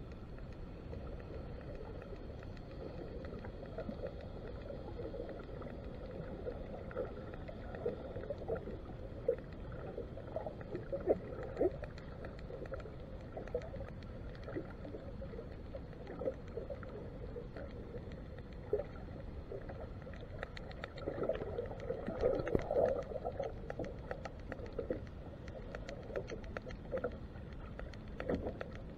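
Underwater noise picked up by a submerged camera: a steady low hum with faint steady tones. Over it run scattered short bumps and crackles, thickest about two-thirds of the way through.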